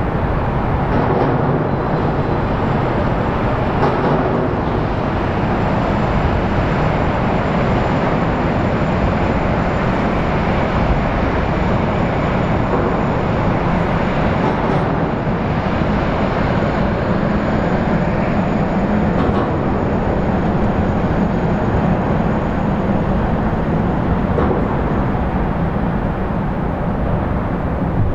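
Jetfoil passenger hydrofoil running past at speed on its foils: a steady loud rush from its gas turbines and water jets, with a faint high whine throughout.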